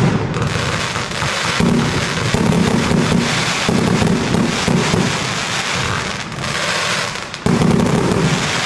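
Imperial Stars 1620 132-shot fireworks compound cake firing in rapid succession: a continuous run of launch thumps and aerial bursts, laced with many sharp pops and crackles.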